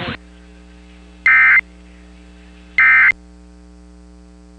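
Two short bursts of Emergency Alert System end-of-message data tones, each about a third of a second long and about a second and a half apart, over a steady low hum. The bursts are the digital code that closes the alert.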